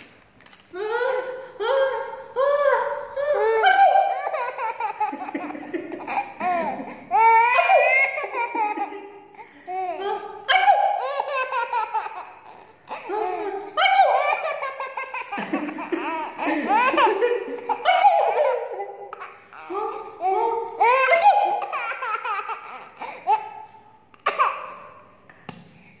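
A baby laughing over and over in short bouts, each laugh rising and falling in pitch, dying down near the end.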